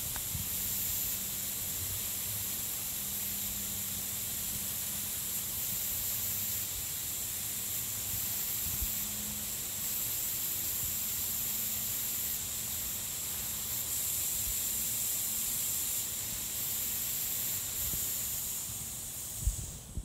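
Water sprinkler spraying: a steady high hiss of spray with no ticking rhythm. A brief knock sounds near the end.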